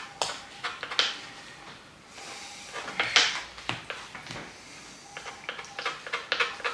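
Kitchen utensils and dishes knocking and scraping: a few sharp knocks, a brief scraping sound in the middle, then a run of light clicks near the end.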